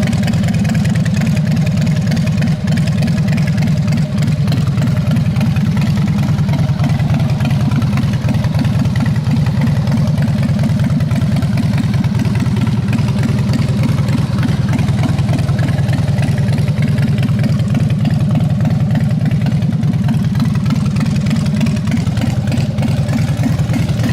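Three-horsepower electric air compressor running steadily under load: a loud, even hum with a fast, regular chugging from the pump.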